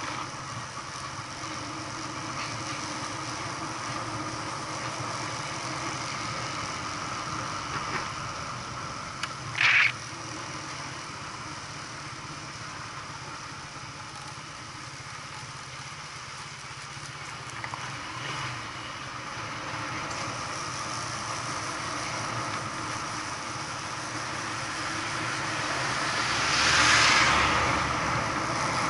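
A vehicle's engine running steadily as it drives along. About ten seconds in there is a brief, loud, high-pitched sound, and near the end a rush of noise swells up and fades.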